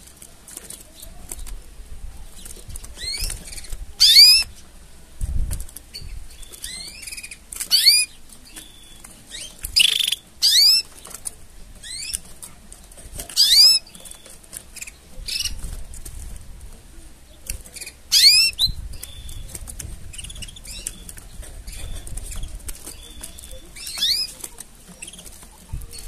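Canaries calling: short, loud groups of high, downward-sweeping chirps every few seconds, with softer chirps between them.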